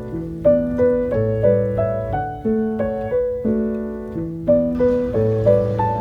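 Background piano music: a gentle melody over low bass notes, with a new note struck about every third of a second, each one fading away.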